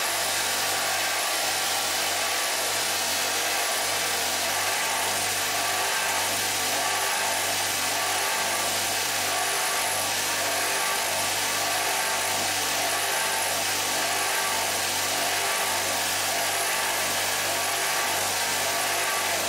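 Bench grinder motor running steadily with a cloth buffing wheel spinning, while a small metal carburetor part is pressed against the wheel for polishing, giving a constant whir and hiss.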